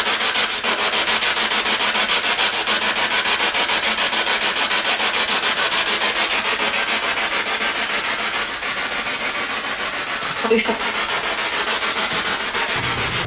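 Loud hissing radio static, chopped into rapid pulses several times a second, cutting off abruptly at the end.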